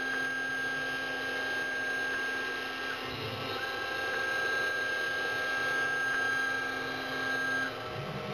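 CNC milling machine working through block material: steady cutting noise with a high, even motor whine from the axis drives during long feed moves. The whine pauses briefly about three seconds in and stops near the end as the machine changes direction.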